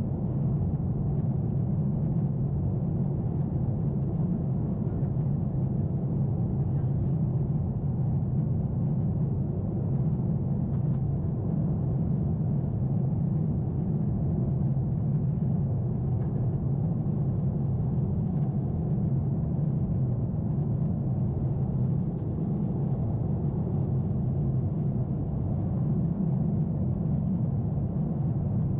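Steady low rumble of engine and airflow noise inside the cabin of a Boeing 747-8 climbing out, with its GEnx engines under climb power.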